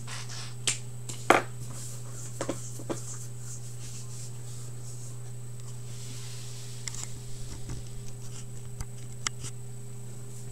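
Steady low electrical hum with scattered light clicks and knocks: a sharper knock a little over a second in, and a run of quick light clicks from about seven to nine seconds.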